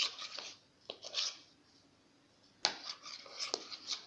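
A spoon stirring and scraping a mix of school glue and tempera paint in a bowl: a run of quick scrapes and taps, a pause of about a second, then a sharp tap and more scraping.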